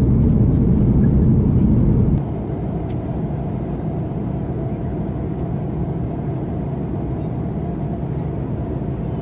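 Steady rushing drone of an Airbus A330-200 airliner cabin in flight. About two seconds in it drops abruptly to a quieter, thinner hum.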